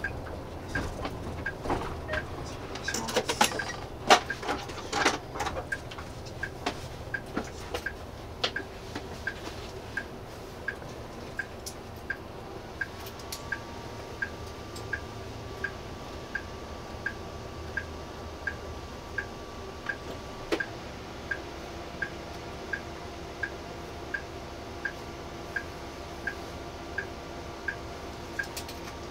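A bus's indicator relay ticking steadily, about one and a half ticks a second, over the low hum of the idling bus. A few louder knocks and clatter come in the first seconds.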